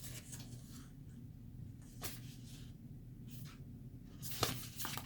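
Faint handling noises from a book and its paper inserts: a few soft rustles and small taps, the clearest a little over four seconds in, over a steady low room hum.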